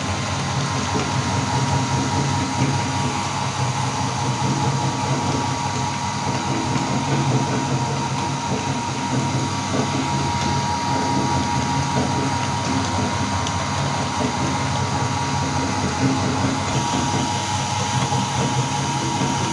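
Electric meat grinder running steadily under load, grinding colored Oreo cookies through its auger and cutting plate: a continuous motor hum with a steady high tone on top.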